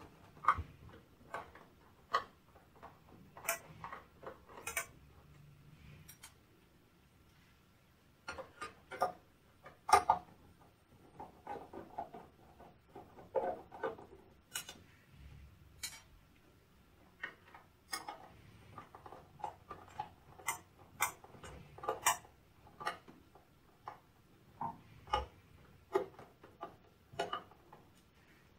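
Phillips screwdriver taking screws out of the metal case of a UPS battery backup: irregular light clicks and taps of metal on metal, a few a second at times, with pauses between.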